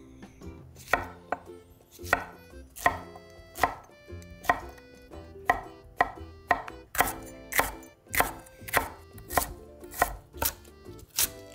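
Chef's knife dicing vegetables (king oyster mushroom and carrot) on a wooden cutting board. The blade knocks sharply and regularly against the board, a little under two strokes a second, starting about a second in.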